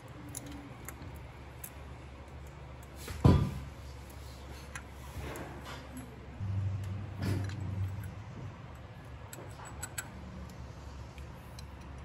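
Metal timing chain clinking and rattling against the camshaft sprockets as it is handled into place, with scattered small clicks and one sharp knock about three seconds in.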